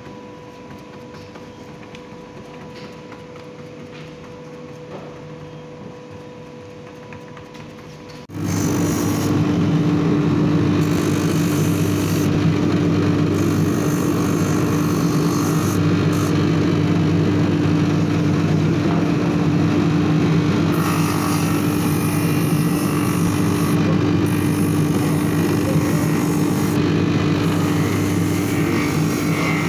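A quiet steady workshop machine hum. About eight seconds in it gives way suddenly to the much louder, steady running of a bench-mounted roughing wheel, with a black stitched leather shoe upper held against the spinning abrasive wheel.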